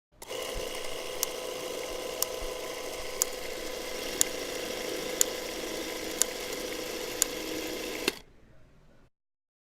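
A steady mechanical whirring hum with a sharp click once a second, seven or eight clicks in all, cutting off suddenly near the end.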